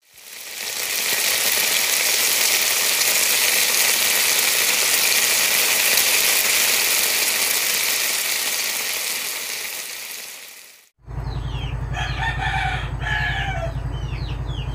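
A loud, steady hissing sizzle for about ten seconds that fades in and out. After a short break, a rooster crows twice over a low steady hum.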